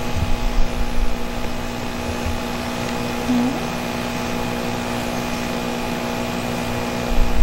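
Steady mechanical hum made of several unchanging tones, with a few low thumps in the first second or so and again near the end.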